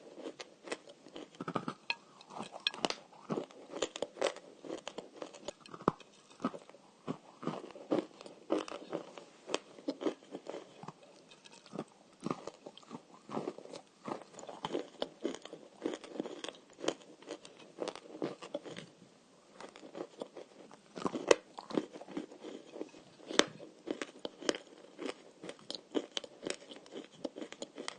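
Dry edible clay (the 'shortbread' kind) being bitten and chewed: a dense run of sharp, crisp crunches and cracks, with a brief lull about two-thirds of the way through.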